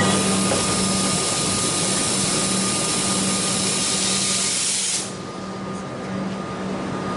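Loud, steady hiss of compressed air from an electric suburban train standing at the platform, cutting off abruptly about five seconds in. A quieter steady hum follows as the train starts to pull away.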